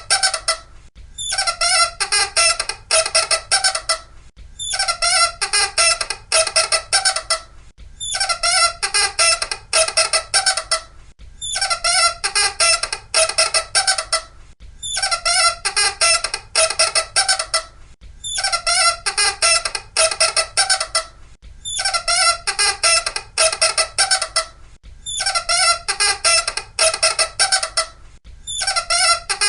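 Loud, high-pitched squeaking that chatters rapidly in bursts of about two and a half seconds, with short breaks, repeating evenly about every three and a half seconds.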